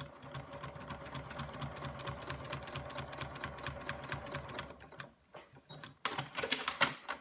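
Domestic electric sewing machine stitching steadily through a paper foundation template and fabric, a fast even run of needle strokes over a low motor hum. It stops about five seconds in, followed by a few sharp clicks and rustling of the paper being handled.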